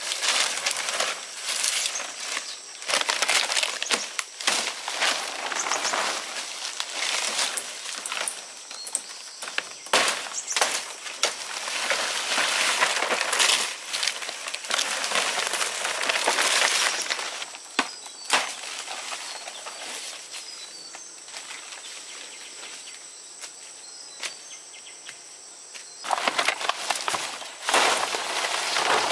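Leafy branches and brush rustling and crackling in irregular bursts as leaves are cut and handled, with a few sharp snaps. It goes quieter about two-thirds of the way through and picks up again near the end, over a steady high-pitched whine.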